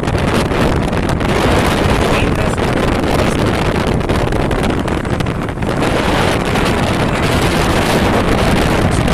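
Loud, steady wind rushing over the microphone of a moving motorcycle, with the bike's running and road noise underneath.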